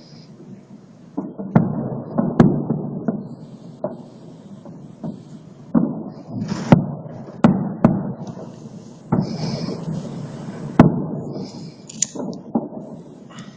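Fireworks salute going off: a dozen or so sharp bangs at irregular intervals, each trailed by a rumbling echo, the loudest about two and a half, seven and eleven seconds in.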